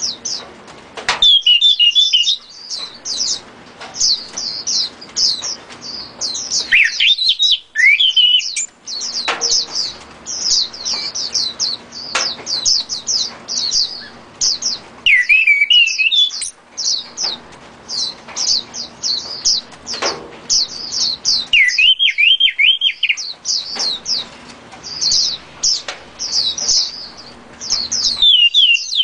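Caged songbird singing: a fast, unbroken run of high chirps, with a lower warbled phrase about every six or seven seconds.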